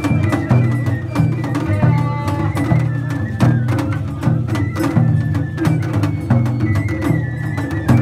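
Japanese festival music (matsuri-bayashi) from a festival float: drums strike a steady, loud rhythm under a higher sustained melody.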